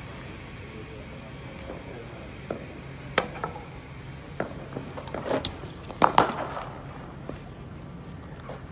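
Sharp knocks of cricket net practice, the loudest a close pair about six seconds in, a cricket bat striking the ball, with a few smaller knocks before it.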